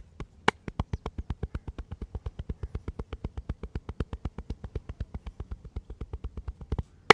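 Percussive massage strokes: hands chopping or slapping rapidly on the body in a fast, very even rhythm of about nine strikes a second, after a few slower separate strikes at the start, stopping just before the end with one sharper strike.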